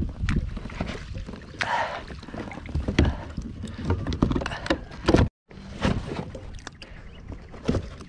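An Australian bass splashing at the surface as it is scooped into a landing net, then the knocks and clatter of the net and fish being brought onto a plastic kayak's deck. The sound cuts out briefly a little past halfway.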